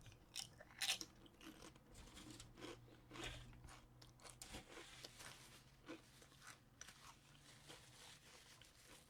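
A person chewing crunchy food, with faint, irregular crunches.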